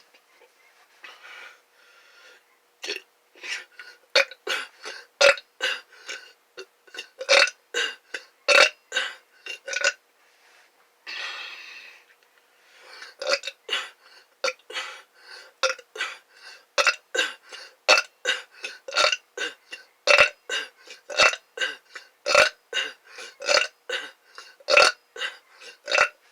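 A person burping over and over in quick succession, short burps coming about two or three a second. The burps are softer for the first few seconds and break off briefly about halfway through before carrying on.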